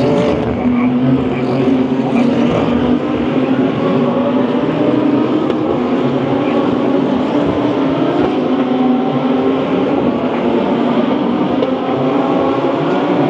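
DTM GT3 race car engines running at racing speed on the circuit, a loud, steady, unbroken engine drone that holds its level throughout.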